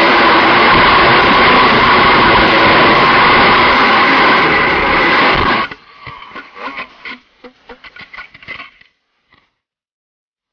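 250cc go-kart engine running hard, heard from the onboard camera, then cutting off suddenly about five and a half seconds in. Scattered knocks and rubbing of the camera being handled follow for a few seconds.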